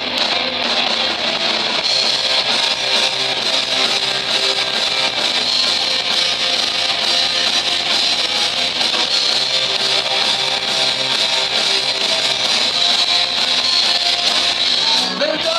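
Live rock band playing an instrumental passage: electric guitar, bass guitar and drums, loud and steady, with no vocals.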